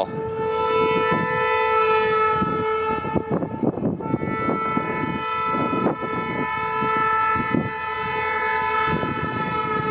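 Diesel freight locomotive's multi-chime air horn held in one long chord; its lowest note drops out about three seconds in. Irregular wheel clatter joins from then on as the locomotive crosses.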